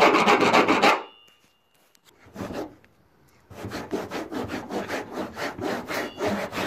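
Fast back-and-forth rubbing on a rough, textured sprayed protective coating. A loud burst of strokes at the start stops after about a second. From about three and a half seconds in, steadier strokes follow at roughly four or five a second.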